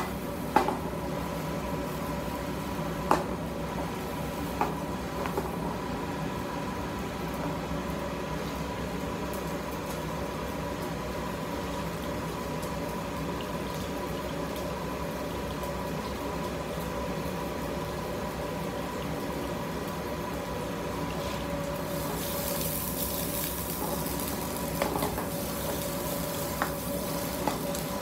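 Sliced onions sizzling steadily in a frying pan on a stove burner, with a few sharp knocks of the pan being shaken in the first seconds. The sizzle turns hissier about 22 seconds in.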